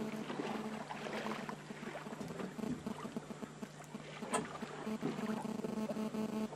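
Steady low hum of a boat's engine running, over a light wash of background noise, with a single short click about four seconds in.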